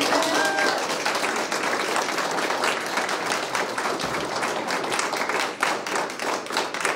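A group of people applauding, a steady patter of many hands clapping throughout.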